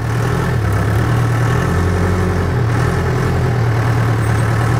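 Backhoe engine running steadily at idle, a constant low hum with no change in speed.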